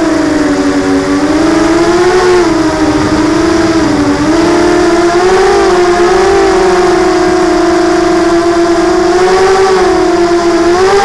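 ZMR250 quadcopter's DYS 1806 brushless motors and Gemfan 5040 propellers whining loudly, the pitch wavering up and down as the craft manoeuvres, dipping about a second in and climbing near the end.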